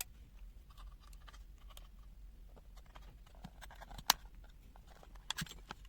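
Faint clicks and rustles of small objects being handled, with one sharper click about four seconds in and a few more near the end, over a steady low hum.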